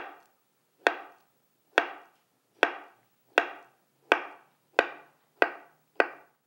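A knife slicing through a peeled avocado and knocking on a wooden cutting board at each cut, a sharp tap about every three-quarters of a second, coming slightly quicker toward the end.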